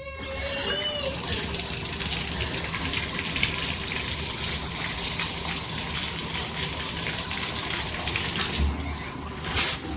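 Water spraying steadily from a handheld shower head, starting up right at the beginning. There is one sharp knock near the end.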